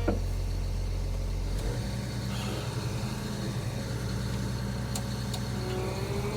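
John Deere 750L crawler dozer's diesel engine running steadily, heard from inside the cab. Its low hum shifts lower about a second and a half in, and a faint rising whine comes in near the end.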